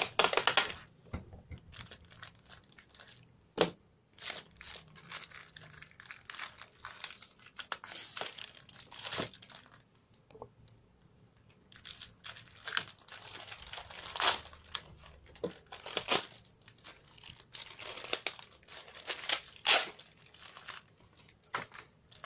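Clear plastic bags and paper envelopes crinkling, rustling and tearing as they are slit open with a small knife and the banknote bundles inside are pulled out and handled. The rustling comes in irregular bursts, with a few sharp clicks; it is loudest in the first second and again in the second half.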